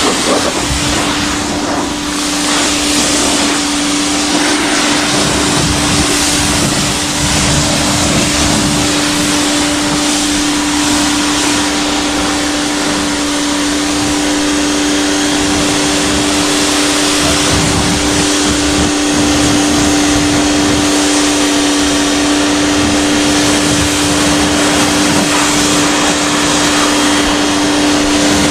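LWQ 4200 PSI electric pressure washer running: a steady motor-and-pump hum at one unchanging pitch over the hiss of the high-pressure water spray.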